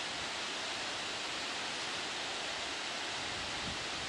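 Steady rushing hiss of fast-flowing river water, even and unbroken.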